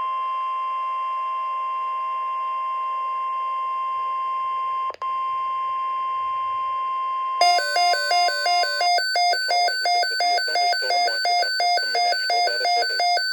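NOAA Weather Radio alert: the steady high warning alarm tone, broken by a brief dropout about five seconds in. About seven seconds in, a warbling two-tone electronic alert takes over, switching pitch about twice a second.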